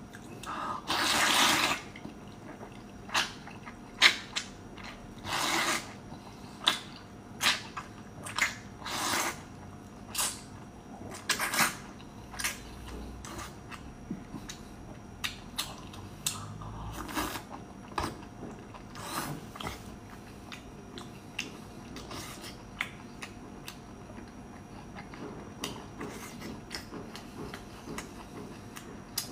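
Close-up eating sounds of beef noodle soup: a long wet slurp of noodles about a second in, then a string of short slurps, lip smacks and chewing that grows sparser in the last third.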